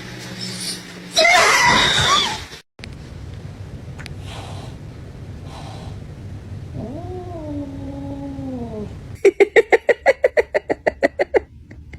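Cat yowling. A harsh, loud screech comes about a second in, a long drawn-out yowl that rises and then falls comes around the middle, and a rapid string of loud, pulsed cries follows near the end.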